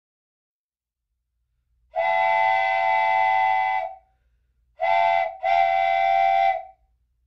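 Old train whistle blowing three blasts, long, short, long, each a chord of several steady tones sounding together.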